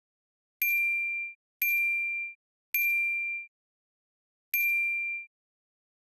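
A bright, bell-like ding struck four times at uneven spacing, each a single high steady tone that rings for under a second and dies away, with dead silence in between: an identical ding sound effect repeated.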